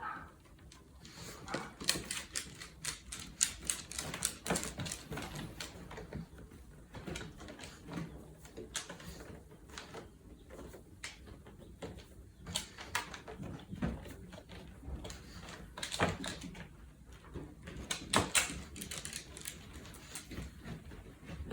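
Dogs' claws clicking and tapping on the floor as they walk about, in quick irregular runs of sharp taps.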